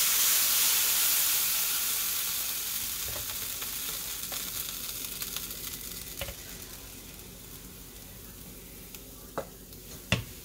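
Hot pancake griddle sizzling and hissing with steam as it is wiped with a paper towel and batter is ladled on; the hiss starts loud and slowly dies away. Two short, sharp clicks come near the end.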